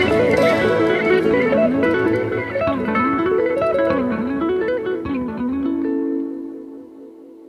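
Background music: a plucked guitar melody that ends on a held chord and fades out near the end.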